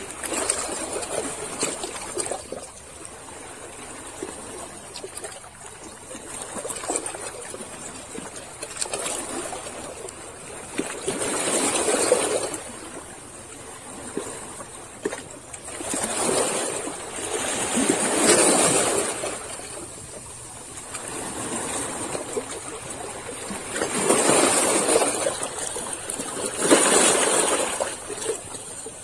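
Small sea waves washing and splashing against shore rocks, in surges that rise and fall every few seconds, one of the last being the loudest.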